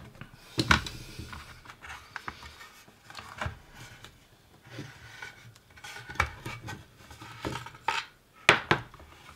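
Hard plastic casing of a 7-inch LCD reversing monitor being handled as its rear cover is lifted off: scattered clicks and knocks with light rubbing and scraping between them, the loudest knocks about a second in and near the end.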